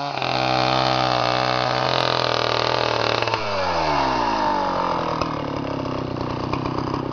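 Two-stroke chainsaw running at high revs, then throttled back about three and a half seconds in, its pitch falling to a steady idle.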